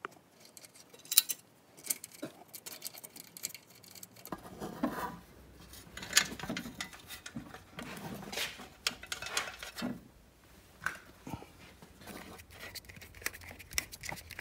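Irregular metallic clicks and rattles of a socket wrench working the Torx bolt that holds the charging stator coil on a small engine, with the stator and loose parts being handled.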